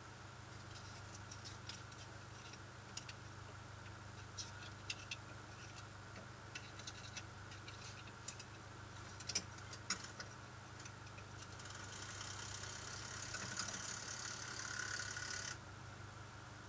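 Rally car idling while stopped, heard from inside the cabin: a steady low engine hum with scattered light ticks and rattles. A hiss builds about three-quarters of the way through and cuts off suddenly.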